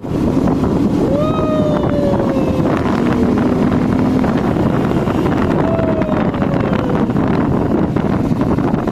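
Steady wind buffeting on the microphone over a moving vehicle's running noise, with a pitched tone that falls slowly, twice.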